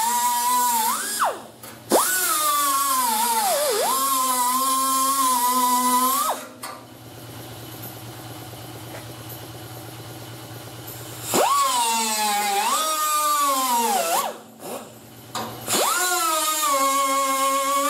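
Grinder with a cut-off disc cutting sheet-steel body panel: a loud whine that sags in pitch as the disc bites into the metal and recovers as it eases off. It runs in several bursts with pauses between them, and a quieter steady low hum carries on through the pauses.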